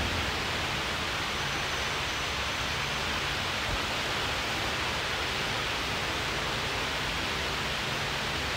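Steady, even rushing background noise with no distinct events, the kind of room noise a running fan or ventilation makes.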